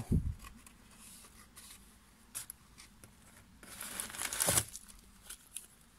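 Crumpled newspaper packing rustling and crinkling as a hand rummages through a cardboard box, with a few faint clicks and the loudest rustle about four seconds in.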